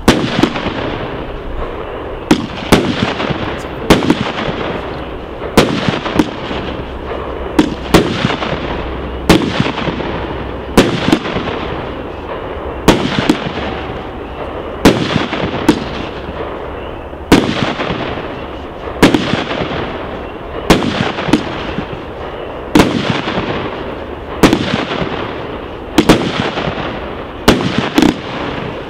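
'Willow Tree' aerial fireworks firing shot after shot: a sharp bang roughly every one to two seconds, some in quick pairs, each trailing off in an echo, over a continuous rushing hiss.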